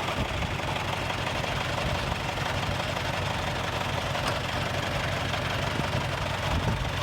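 Mitsubishi 4D33 four-cylinder diesel engine idling steadily with a knock sound in its running, a sign of an internal fault in the engine.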